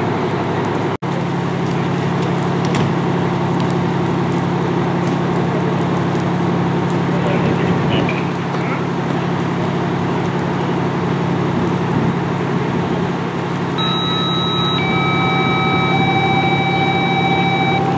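Fire truck engine running steadily with a constant low hum. The sound cuts out briefly about a second in, and a few steady high-pitched tones come in near the end.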